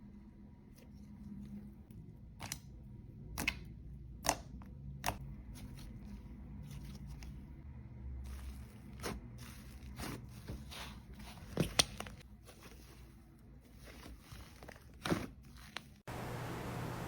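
About ten sharp crunches and clicks at irregular intervals over a soft handling rumble, like a crunchy craft material being pressed or cut by hand. About a second before the end it cuts abruptly to a steady hiss.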